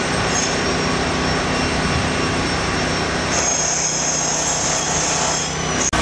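Steady engine noise with a low hum. A high whine joins about three seconds in and stops near the end, where the sound briefly cuts out.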